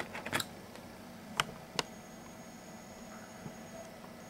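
A few light clicks and knocks, about three in the first two seconds, as an iPhone is handled and set down on the desk, over faint room hiss. A faint thin high whine runs for about two seconds in the second half.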